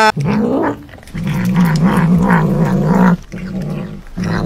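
A cat growling over its food: a low, wavering growl for about two seconds, then in shorter stretches after brief pauses, with a short rising cry at the very start.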